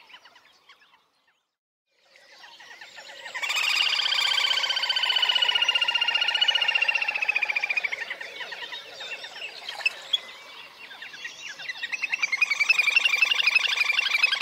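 Little grebe trilling: rapid high trills, one fading out in the first second. After a short silence a long trill swells up, holds for several seconds while its pitch sinks slightly, and fades. Another trill builds up near the end.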